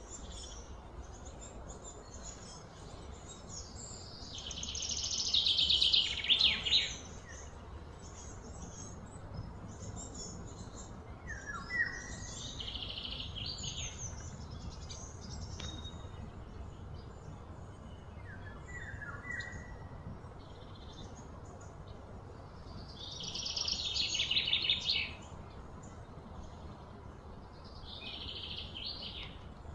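Birds calling: a few short falling chirps, and twice a loud, high, buzzing trill that swells for a couple of seconds and then stops abruptly. A steady low background hum runs underneath.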